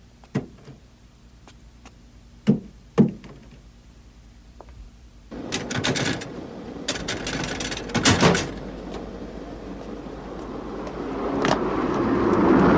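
A few isolated sharp knocks, then a wooden door clattering as it is pushed open, in bursts about six to eight seconds in. A car then approaches, its noise rising toward the end.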